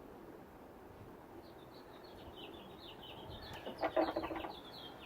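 A bird sings a fast run of short, high chirps. A short clatter of clicks sounds about four seconds in, the loudest moment.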